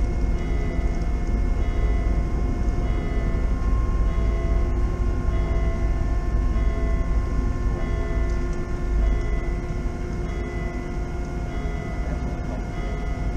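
A large car ferry's engines and machinery droning steadily: a deep rumble with a steady hum of several tones above it.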